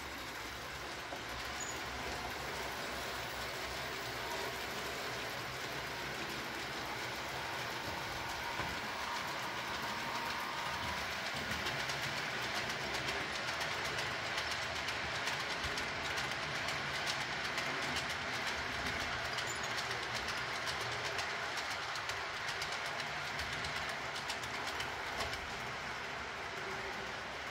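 Model railway train of gravel hopper wagons hauled by a model Ae 6/6 electric locomotive, its small wheels rolling and clicking over the track. The sound is steady and grows somewhat louder as the train passes through the middle, then eases off.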